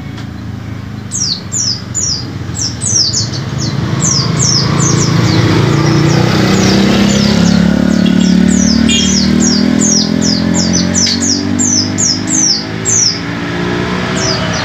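White-eye (pleci) singing fast runs of high, sharply falling notes, several a second, with short pauses between runs. Underneath, a vehicle's low engine hum swells to its loudest about halfway through and then eases off.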